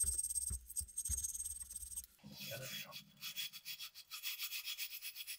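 Small wire brush scrubbing rust out of the eye of an antique Van Camp hewing hatchet's steel head: rapid back-and-forth scratching strokes, with a short pause about two seconds in before a faster run of strokes.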